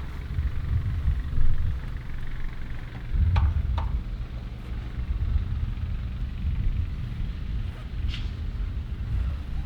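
Low, uneven rumble of wind buffeting the microphone, with a few sharp clinks of bricklaying tools: two about three and a half seconds in, one about eight seconds in.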